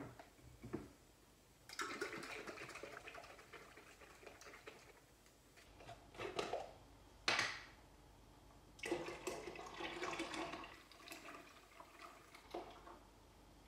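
Raw milk sloshing and pouring from half-gallon glass jars into a metal pot, in two stretches of a few seconds each. A few sharp clinks of glass and lids fall between them.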